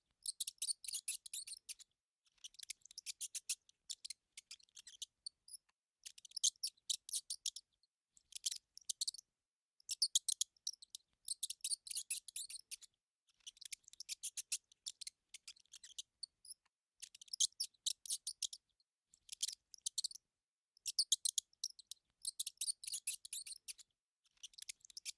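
Mouse squeaking in high-pitched chittering bursts, each a rapid train of tiny clicks lasting about a second, repeated after short pauses.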